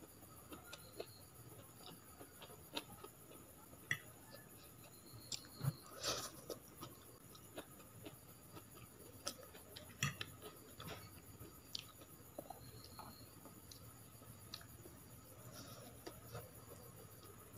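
Close-up eating sounds of chow mein noodles: quiet chewing, with scattered light clicks of a metal fork and spoon against a plate.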